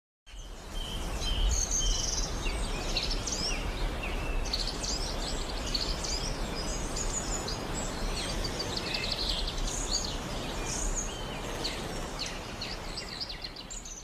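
Several birds chirping and singing over steady outdoor background noise with a low rumble. It fades in just after the start and fades out near the end.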